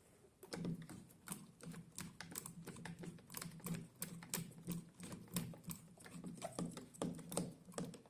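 Quiet, rapid, irregular clicking, roughly three or four clicks a second with uneven spacing.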